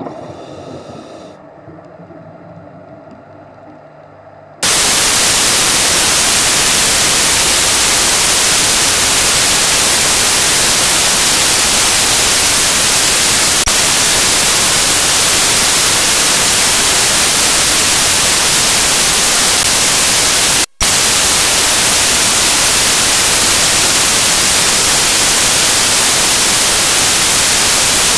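Loud, steady static hiss like white noise, cutting in abruptly about four and a half seconds in and dropping out for an instant about three-quarters of the way through. Before it, a fainter sound fades away.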